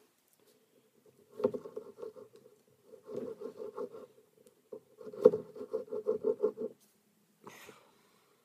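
Skin rubbing on a hard tabletop with squeaky stick-slip pulses, several a second, in three short runs while fingers work at fletching tape.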